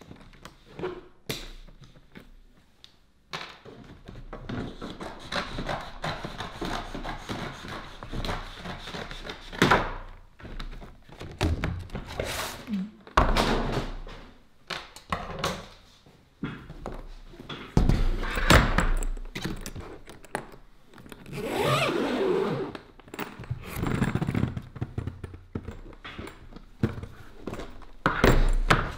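Handling noise from unpacking a drone and its accessories from a carrying case: repeated thunks, knocks and clicks as parts are lifted out and set down, with rustling between them.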